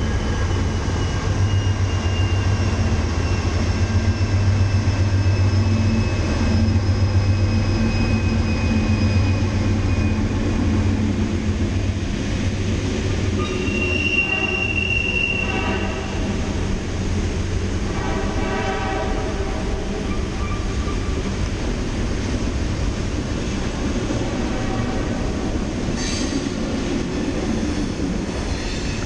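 Freight train passing on the track above: a deep low rumble of the train, strongest in the first ten seconds, with long slowly falling high-pitched wheel squeals. Further high squeals come about halfway through.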